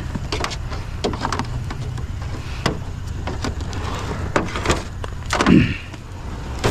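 Power cord being cut off a discarded pump: scattered clicks and knocks of tools and metal being handled, with a louder scrape that slides down in pitch near the end, over a steady low rumble.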